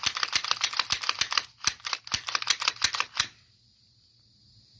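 Rapid series of small sharp clicks from a Glock 19 Gen 4 pistol being worked by hand, its trigger not resetting. The clicking stops about three seconds in.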